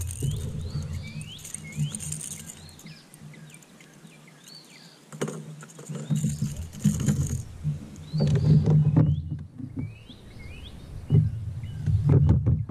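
Birds chirping over and over in short rising calls, with loud bumps and rubbing from gear being handled in a kayak, the heaviest in the second half.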